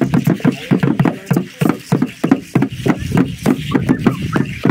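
Drum beaten in a steady, quick dance rhythm, several strikes a second, with some voices faintly between the beats.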